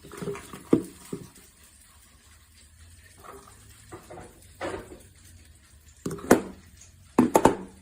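Handling clicks and knocks from a stainless steel electric grain grinder as it is opened up: a few sharp knocks about a second in and a louder cluster of clicks near the end.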